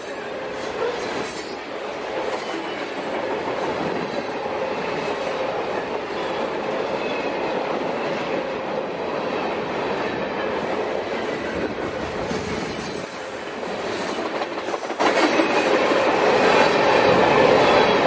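Freight train cars rolling past with a continuous rumble and clatter of steel wheels on rail and faint thin squealing tones, growing clearly louder about 15 seconds in.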